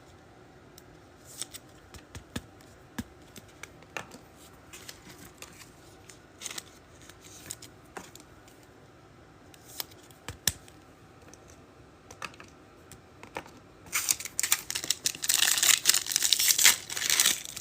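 Trading cards being handled, with scattered light clicks and slides, then about fourteen seconds in a foil card pack being torn open with loud crinkling.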